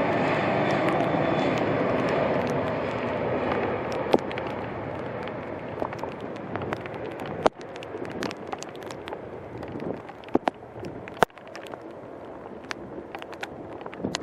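Jet airliner engines passing close and fading away, with irregular sharp taps of raindrops striking the camera that stand out more as the engine noise dies down.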